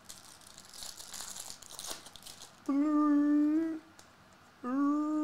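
Trading-card pack wrapper crinkling and cards rustling as they are handled, for about two and a half seconds. Then a person's voice holds two steady notes, each about a second long.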